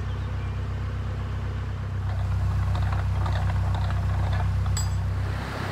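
Narrowboat engine ticking over at a low, steady idle: a deep, even hum.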